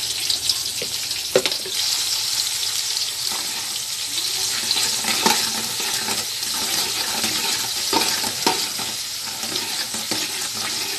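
Sliced onions sizzling in hot oil and ghee in a large aluminium pot. A metal ladle stirs them, with a few short clicks where it scrapes and knocks the pot.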